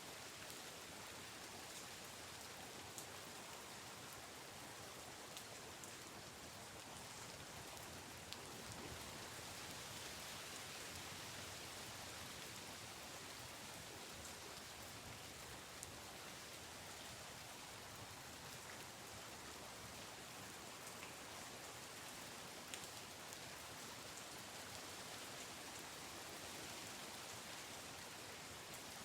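Steady rain falling, with an occasional single louder drop now and then.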